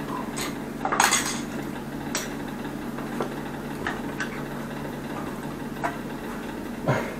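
Pipe wrench clinking and knocking on the metal stub of a broken angle valve at the wall outlet as it is gripped and worked loose: a handful of separate metallic knocks, the loudest about a second in. A steady low hum runs underneath.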